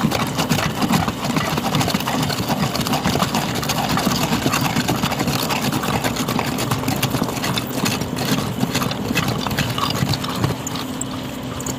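Rotary hammer drill with a long fluted bit boring into packed soil and gravel, a dense, rapid hammering rattle.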